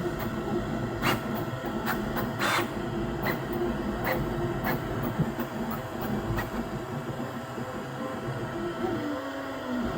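QiDi Q2 3D printer running a PET CF print: stepper motors whine in shifting pitches over a steady fan tone, with scattered light ticks.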